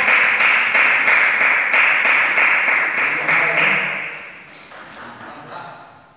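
Loud, even rushing noise broken by regular sharp clicks about three a second, fading out about four seconds in. Then a few separate clicks of a table tennis ball on table and bat.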